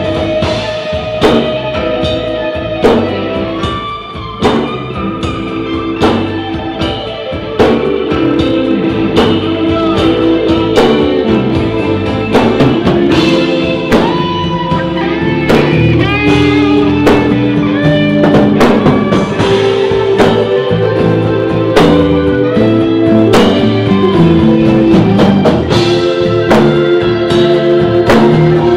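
Live blues-rock band playing: an electric guitar holds and bends notes over a steady drum-kit beat, with no vocals.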